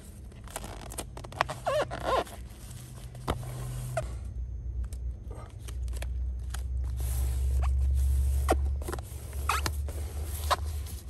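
White vapor barrier seam tape being pressed and smoothed by hand onto bubble-foil insulation: scratchy crinkling and rustling of the plastic film, with scattered sharp crackles. A low rumble swells in the middle.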